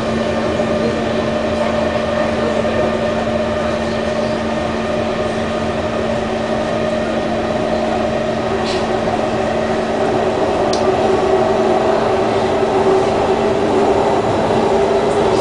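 Interior running noise of a Kawasaki C151 MRT train with Mitsubishi GTO chopper propulsion: a steady rumble with several held tones, the higher ones drifting slightly in pitch. The sound grows a little louder in the second half, and two short clicks come partway through.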